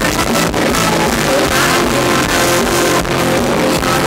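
Live band playing loud, upbeat Thai ramwong dance music with a steady beat.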